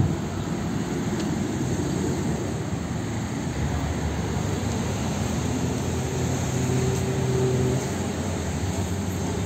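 Steady road traffic noise with a vehicle engine humming. Its tone stands out from about halfway through, grows a little louder, then drops back near the end.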